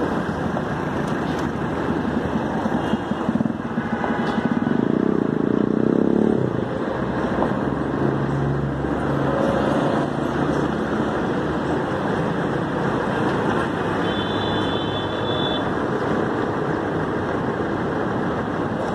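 Steady noise of busy road traffic, cars and motorcycles, with one vehicle passing louder about five seconds in.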